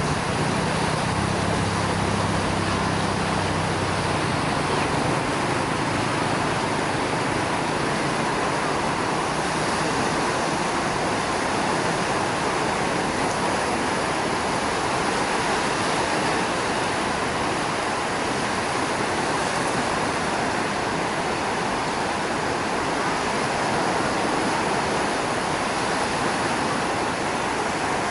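Waves breaking on a beach in a rough sea: a steady, even rush of surf.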